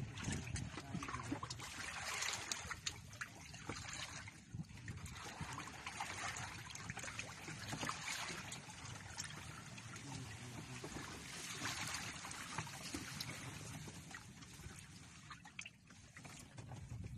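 Shallow water lapping and trickling around a fishing net in the shallows, swelling and easing in slow rushes several times.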